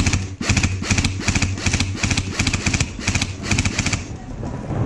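An airsoft gun firing rapid short bursts, each a quick run of shots, about two or three bursts a second, stopping about four seconds in.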